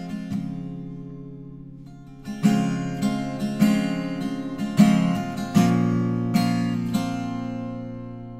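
Background music: an acoustic guitar strumming chords that ring out and fade between strokes, growing louder about two seconds in.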